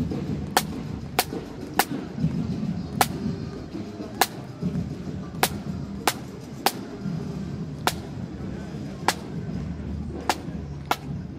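Drum corps of a marching pipe band beating the march: sharp drum clicks on a steady beat about every 0.6 seconds over a low, continuous rumble.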